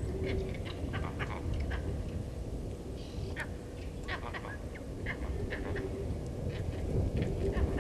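Vervet monkeys giving short, sharp alarm calls, two or three a second, over a steady low rumble: their alarm at a leopard on the move nearby.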